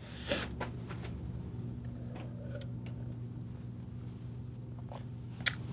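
Quiet room tone: a steady low hum with a few faint clicks, the sharpest near the end.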